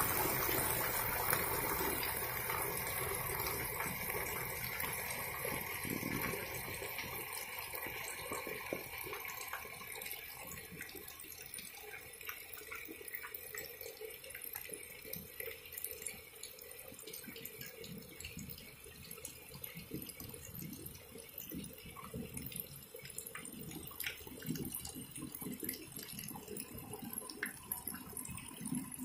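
Heavy monsoon rain falling on a yard, with water pouring off a roof edge and splashing onto the wet ground in many small splashes and drips. Louder at first, settling lower after about ten seconds.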